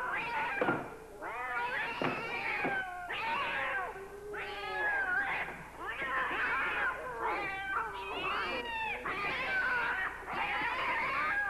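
Several cats yowling and caterwauling at once, overlapping cries that keep bending up and down in pitch.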